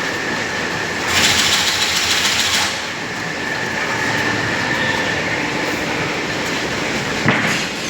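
Die punching machine running with a steady mechanical clatter and a constant high whine. A louder hiss comes in for about a second and a half just after the start, and there is a single sharp click near the end.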